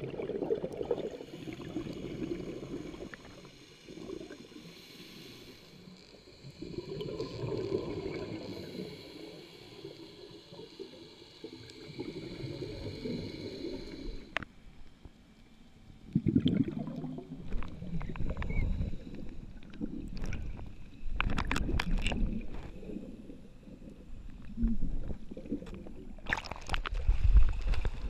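Scuba diver breathing through a regulator underwater: repeated bubbling surges of exhaled air with a thin hiss between them. Near the end come sharp clicks and splashing as the diver reaches the surface.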